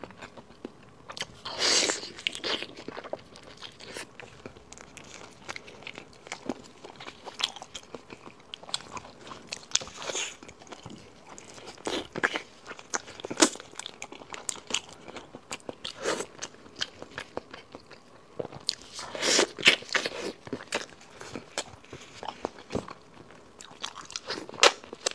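A person biting and chewing braised pig's trotter close to a clip-on microphone: irregular wet mouth sounds and bites, with louder bursts about two seconds in and around twenty seconds.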